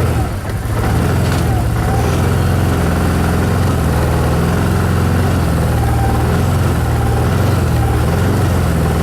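Vehicle engine idling steadily, a low even hum, with a few faint short squeaks now and then.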